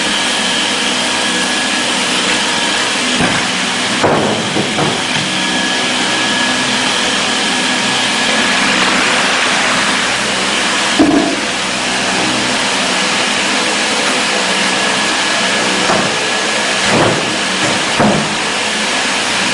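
Steady machinery noise, a loud hiss with a faint high whine held on steady pitches, broken by a few short knocks about 4, 11, 17 and 18 seconds in.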